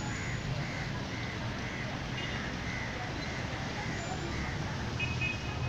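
A bird calling in a steady series of short, evenly spaced notes, about two a second, over a low background rumble.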